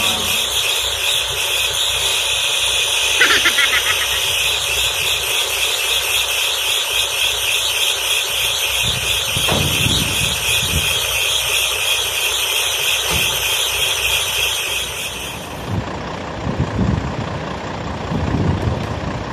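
Volvo tow truck's diesel engine idling steadily. A steady high hiss runs over it and cuts off suddenly about three-quarters of the way through.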